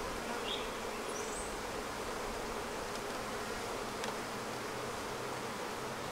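Honeybees buzzing steadily around an open hive: the continuous hum of many bees on the frames and in the air.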